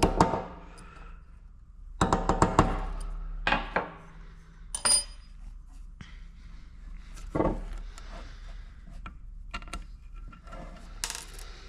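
Metal parts tapped and clinking on a 4L80E transmission's front pump body as a valve is worked out of its bore. There are separate sharp knocks and clinks, a quick cluster of ringing strikes about two seconds in and a brief high metallic ping around five seconds.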